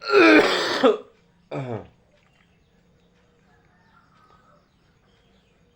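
Two loud vocal sounds from a person, both falling in pitch: the first lasts about a second, the second is shorter and follows about half a second later.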